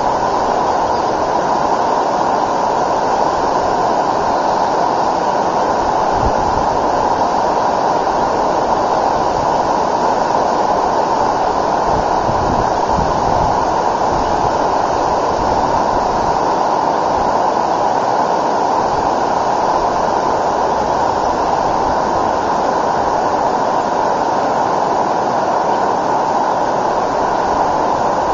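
River water rushing steadily over a rocky riffle close to the microphone, with a few brief low rumbles of wind buffeting the microphone.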